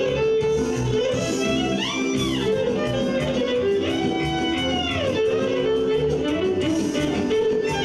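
A live folk band with accordion plays fast Balkan dance music for a line dance. It has a steady beat, and the lead melody slides between notes about two seconds in and again at four to five seconds.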